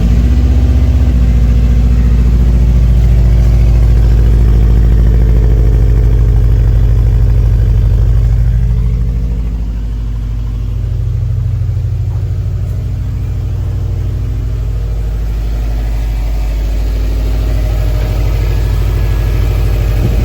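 A 2007 Subaru Impreza WRX STI's turbocharged 2.5-litre flat-four idling steadily through a MagnaFlow cat-back exhaust, just after being started. The idle gets quieter about nine seconds in.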